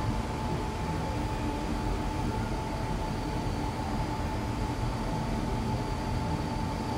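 Steady rushing hum inside a moving cable car cabin, with a thin, constant whine above it.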